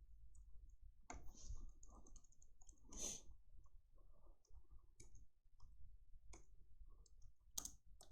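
Faint, scattered clicks of a computer mouse and keyboard, with a couple of louder clicks about three seconds in and near the end.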